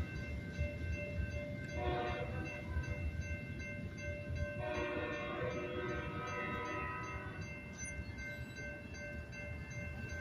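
Railroad crossing bell ringing steadily over the low rumble of a departing freight train. The train's horn sounds in the distance: a short blast about two seconds in, then a longer one from about five to seven seconds.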